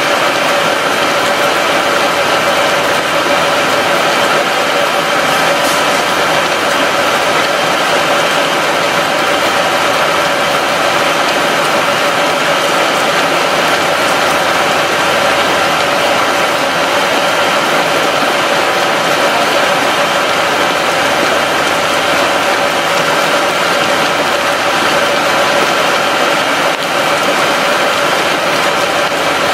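Water boiling hard in a steel tank heated by a SunCell molten-gallium reactor and giving off steam: a loud, steady churning noise, with a steady machine hum running through it.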